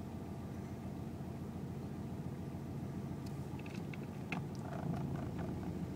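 Off-road vehicle engine running steadily with a low hum, and a few faint clicks or knocks in the second half.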